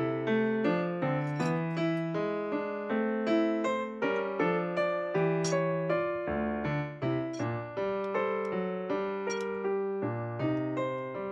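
Background piano music: a steady melody of struck notes, each fading after its onset.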